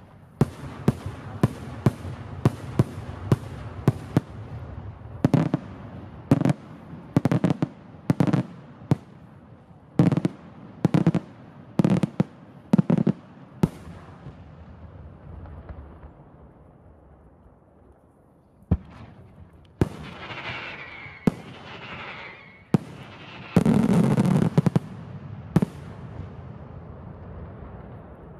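Daytime aerial firework shells bursting: a fast run of sharp bangs, about two a second, then louder bangs with a trailing smear about one a second. After a lull come a few more single bangs and a longer, loud stretch of rushing noise near the end.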